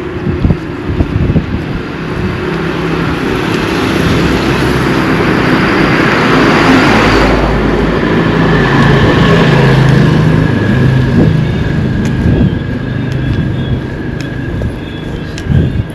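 A motor vehicle passing by on the road, its engine and tyre noise swelling to a peak about halfway through and then fading into a steady engine hum, with wind rumbling on the microphone.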